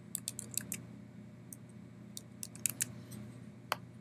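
Computer keyboard being typed on in quick, irregular key clicks, with one sharper click near the end, over a low steady hum.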